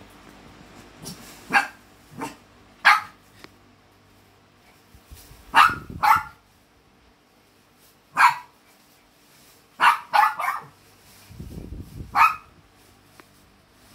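Small dog barking: about ten short, sharp barks spread unevenly, some single and some in quick runs of two or three.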